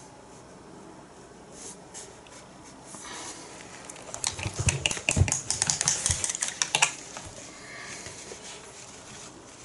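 Painting supplies being handled: a quick cluster of clicks and taps with a few dull knocks, after a few seconds of quiet.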